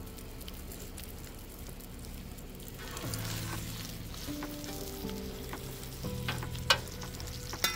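Steak and fries sizzling on a propane flat-top griddle, with a metal utensil working in a stainless steel bowl; two sharp metallic clicks near the end.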